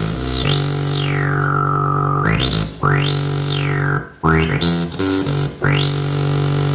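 Ritm-2 synthesizer playing sustained low notes while a resonant filter sweeps up and down, several quick sweeps and then a long one. The sound briefly drops out about four seconds in before the notes return.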